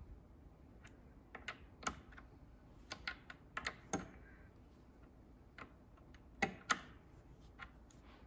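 Ratchet wrench on the square-headed band adjusting screw of a Chrysler 727 transmission, clicking in short irregular bursts as the screw is backed out to set the first-and-reverse band two turns off 72 inch pounds. The two loudest clicks come close together about six and a half seconds in.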